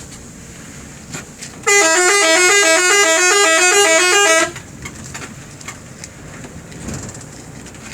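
Telolet musical bus horn on an ALS intercity bus, sounding a rapid up-and-down run of notes for about three seconds, starting a little under two seconds in. It stops abruptly, leaving the bus's steady running noise.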